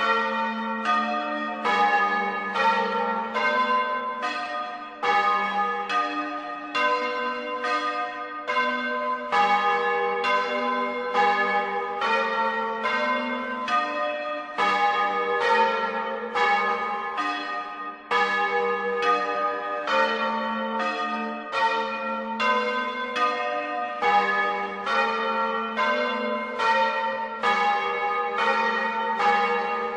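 Church bells rung in the Bolognese manner, several bells of different pitch striking one after another in a steady run of strokes, each left ringing under the next.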